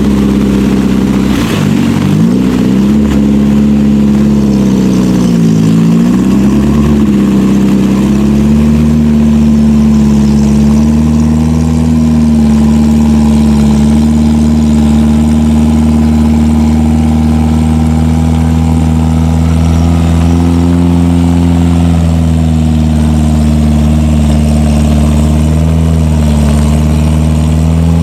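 Off-road 4x4's engine running under load. Its pitch sags and recovers twice in the first several seconds, then holds fairly steady with small rises and falls.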